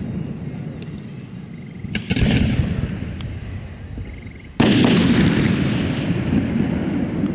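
Aerial fireworks shells bursting: a bang about two seconds in with crackling after it, then a louder boom a little past halfway whose rumble echoes on.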